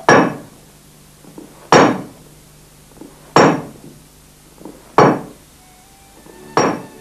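Heavy forge hammer striking iron five times at an even pace, about one blow every second and a half, each blow ringing briefly. Organ music begins to come in near the end.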